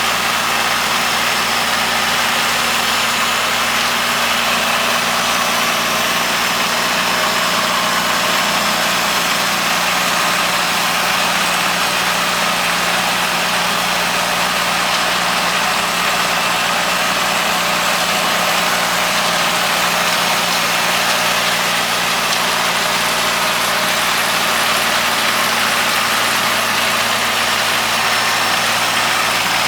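Kubota L3200 compact tractor's three-cylinder diesel engine running steadily while pulling and powering a Farm Maxx mini round baler during baling.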